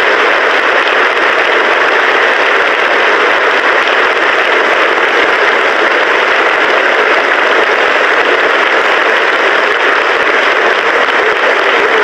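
Large audience applauding steadily and densely.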